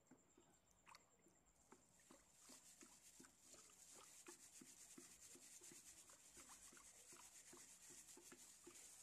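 Very faint stirring: a wooden stick working water in a plastic bucket as tylose thickener is mixed in, with soft regular strokes about three a second.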